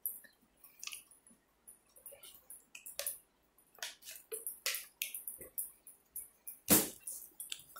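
A few scattered soft clicks and ticks, with one louder knock near the end.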